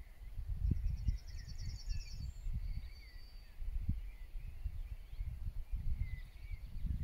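Wind buffeting the microphone in uneven low gusts, with songbirds singing over it: a fast high trill about a second in, a short high whistle after it, and scattered chirps.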